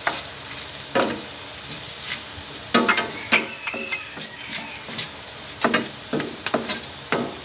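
Onions sizzling as they sauté in butter and olive oil in a pan, with a utensil knocking and scraping against the pan as they are stirred, several sharp strikes over the steady sizzle.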